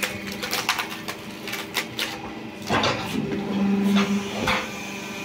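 The motor of a log-splitting machine running with a steady hum, growing louder about three seconds in, with irregular clicks and knocks.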